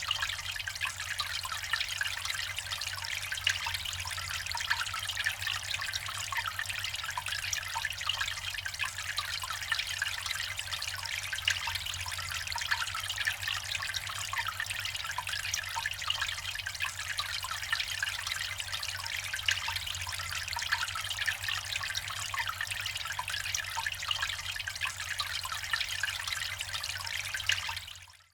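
Water trickling and splashing steadily down the tiers of a slate garden fountain, with many small drips, over a faint low steady hum. It fades out at the very end.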